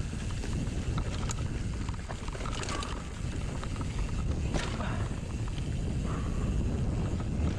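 Mountain bike riding over a dirt trail: a steady low tyre rumble with wind buffeting the microphone, broken by clicks and rattles from the bike over bumps, the sharpest a little before and a little after the middle.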